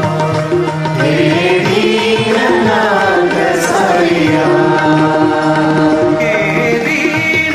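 Indian devotional bhajan music with tabla and held notes underneath. A melody line glides up and down through the middle, then held notes return near the end.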